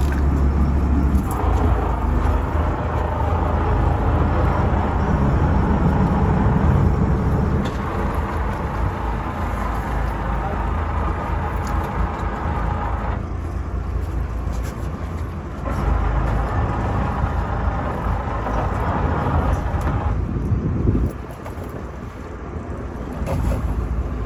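A boat's engine running steadily under wind and water noise, its level and tone shifting abruptly several times.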